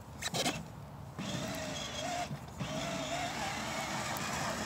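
Battery-powered ride-on toy motorcycle pulling away over wood chips: a couple of plastic knocks as the child gets on, then from about a second in its electric drive motor runs with a steady whine that wavers in pitch as the load changes.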